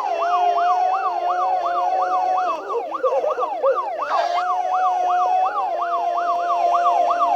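Electronic siren-like cartoon sound effect: a pitch that sweeps up and down about three times a second over a steady held tone, with a short hiss about four seconds in.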